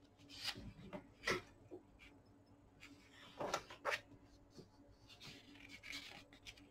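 Glossy pages of a large hardbound book being turned and smoothed by hand: several short paper swishes and rubs, with a softer rustle near the end.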